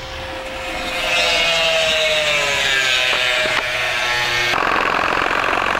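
Angle grinder with an abrasive cut-off wheel cutting into the steel of a motorcycle swing arm. The motor whine sags slowly in pitch as the disc bites into the metal, and about four and a half seconds in the sound switches abruptly to a rougher, noisier grind.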